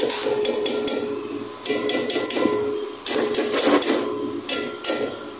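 Plastic colander knocked against the rim of a steel cooking pot to shake out the last chopped potatoes and eggplant, in four quick bursts of sharp knocks.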